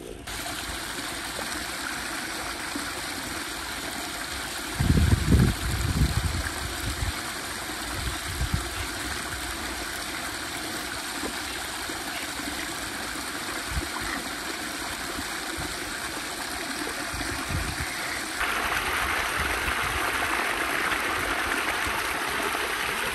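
Shallow river water flowing and babbling steadily over rocks. A few low rumbling thumps come about five seconds in, and from about 18 seconds on the rush is louder and brighter, close to churning water.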